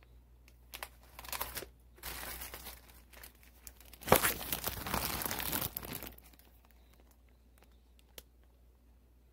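Plastic food bags crinkling and rustling as they are handled, in irregular bursts, the loudest stretch from about four to six seconds in, then a few faint clicks.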